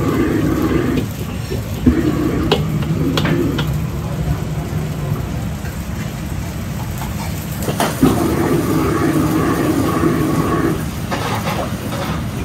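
Commercial gas wok range: the burner running steadily under a wok of noodles frying and sizzling, with a few sharp metal clanks of the wok and utensils.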